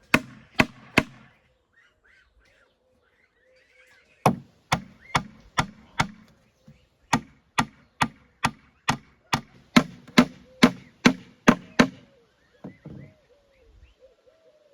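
Rhythmic chopping, about two and a half strokes a second, in three runs broken by short pauses, with faint birdsong behind it.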